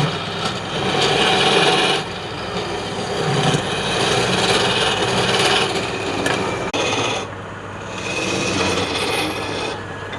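Wood lathe running while a turning tool cuts into the spinning wood: a continuous hissing scrape over the lathe's steady hum. The cut swells and eases, going lighter after about seven seconds.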